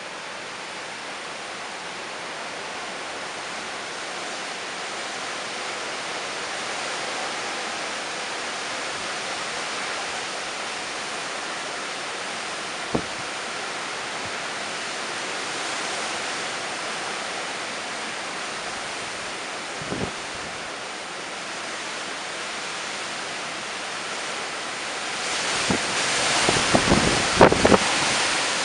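Hurricane wind and heavy rain making a steady rushing noise. Gusts buffet the microphone in short low thumps a couple of times, and near the end a stronger gust brings louder buffeting.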